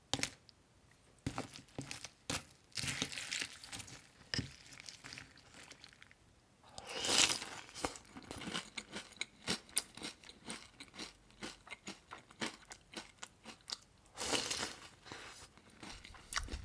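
Crisp crunching of dry Post corn flakes, many short crackles in quick succession, with a few longer rustling stretches of the flakes being handled.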